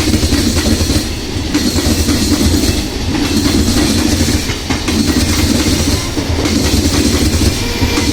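Electric multiple unit (EMU) local train running along the track: a loud, steady rumble with wheels clattering over rail joints.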